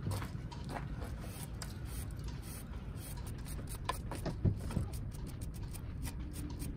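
Stiff bristle brush scrubbing the metal water-pump base plate of a Yamaha 8 outboard's lower unit, heard as short scrapes that come thicker near the end. Scattered light clicks sit over a steady low rumble.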